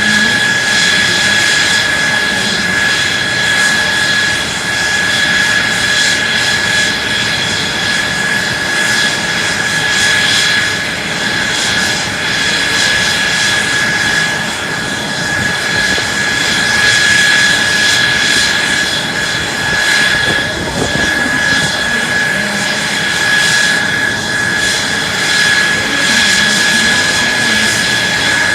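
Mitsubishi F-2 fighter's F110 turbofan engine running steadily on the ground, a loud rush with a steady high whine over it.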